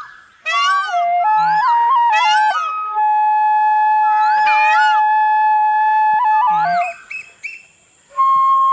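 Bansuri bamboo flute playing a melody of short notes with bending, sliding ornaments and one long held note in the middle. The tune breaks off briefly at the start and for about a second near the end, then comes back on a held note.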